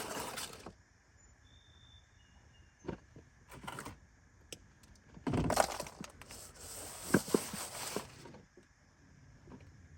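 Oil drain pan and tools being handled and pulled out from under an ATV: scattered clinks and knocks, with a few seconds of scraping and rustling about halfway through.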